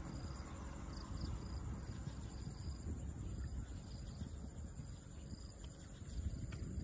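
Insects chirping in short, high, repeated chirps over a steady low rumble.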